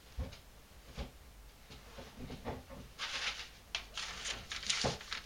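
Handling noise: a few light knocks and, about three seconds in, a stretch of paper rustling as a silicone-coated piece is wrapped in paper and handled.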